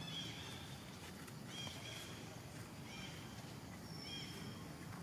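Short, high-pitched chirping calls from a small animal, repeating about once a second, over a steady low background hum.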